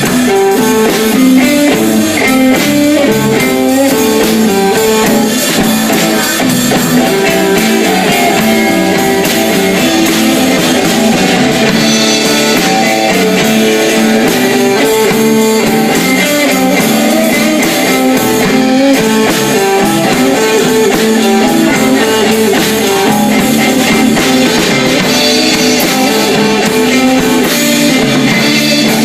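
Live blues band playing an instrumental: electric guitar lead over bass and a drum kit, loud and steady throughout.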